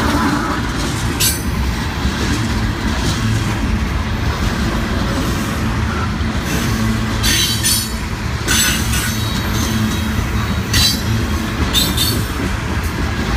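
Refrigerated boxcars of a freight train rolling past close by: a steady rumble of steel wheels on rail. Several brief high wheel squeals cut through, mostly from about seven seconds in.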